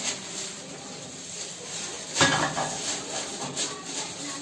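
Hard plastic clicks and clatter as the fittings, locking clips and tubing of a reverse-osmosis water purifier are handled and pushed together, with a louder knock about two seconds in.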